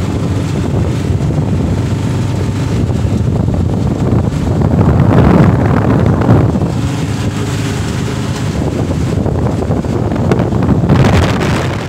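Auto-rickshaw engine running steadily while under way, heard from inside the open-sided cabin, with wind buffeting the microphone. The wind rush grows louder about five seconds in and again near the end.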